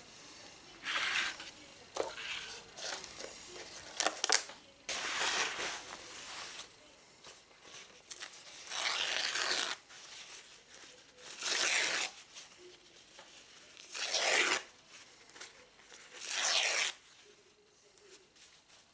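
White kitchen paper towel being torn by hand into strips: several short ripping sounds, each up to about a second long, every two to three seconds. A few light clicks and knocks come about two to four seconds in.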